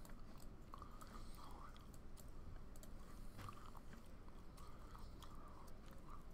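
Quiet room tone with a scattering of faint, soft clicks.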